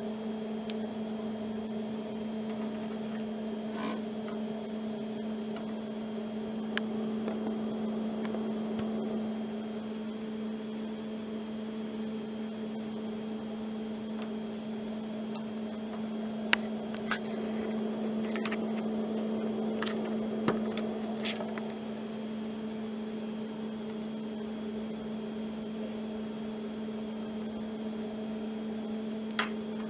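A steady hum with two strong tones runs throughout. A few sharp clicks come in the middle and one near the end as the BNC cable connectors are handled and fitted to the oscilloscope's input.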